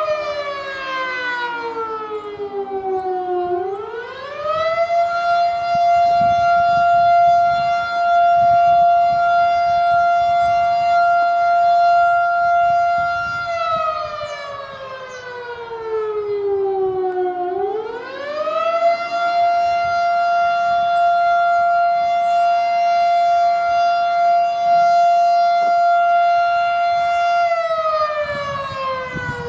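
Federal Signal Model 7 electromechanical storm siren sounding its attack signal. Its single tone winds down in pitch, winds back up and holds steady at the top for about eight or nine seconds. This happens twice, and it starts falling again near the end.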